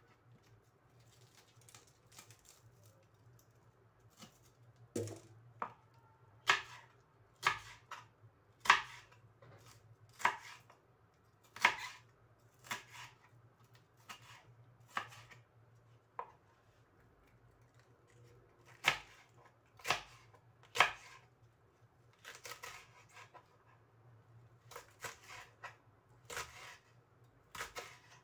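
Kitchen knife chopping large green chilies on a plastic cutting board: sharp, irregular knocks about once a second, some in quick runs, with quieter cutting between, over a faint steady low hum.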